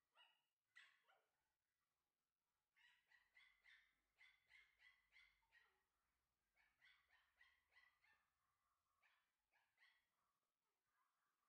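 Pomeranian puppy yapping in short, high-pitched barks, faint, in quick runs of about three barks a second with brief pauses between the runs.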